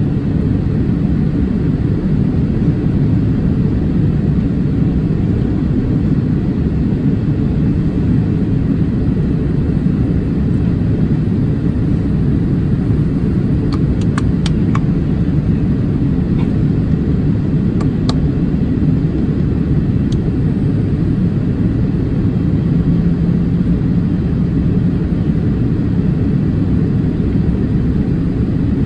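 Steady low cabin rumble of a Boeing 787-8 Dreamliner in descent, engine and airflow noise heard from a seat over the wing. A few faint ticks come about halfway through.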